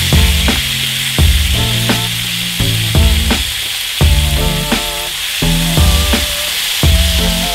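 Bone-in chicken thigh sizzling steadily in a cast iron skillet preheated to 400°F, with the hot pan searing the marinated skin. Lo-fi background music with a regular beat and bass notes plays over it.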